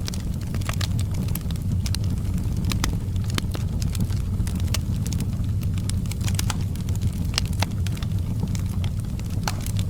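Wood fire burning in a fireplace, crackling with frequent, irregular sharp pops and snaps over a steady low rumble of the flames.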